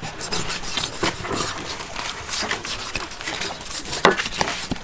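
Meat cleaver hacking and cutting into a raw pig carcass: irregular knocks and cuts, the loudest about four seconds in.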